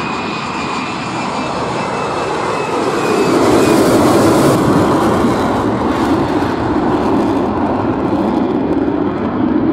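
Jet engine noise from an F-35 fighter: a loud, steady rush with a thin whine in the first few seconds, swelling about three seconds in with a high hiss at its loudest, then easing slightly.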